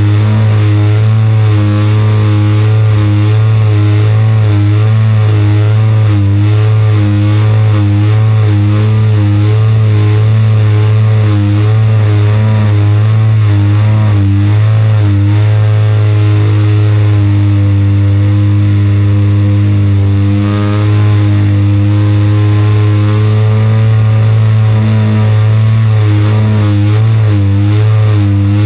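A model aircraft's single-cylinder 30cc two-stroke petrol engine running steadily at high throttle in flight, heard close up from on board. The drone wavers rhythmically in pitch, steadying for a few seconds past the middle before wavering again.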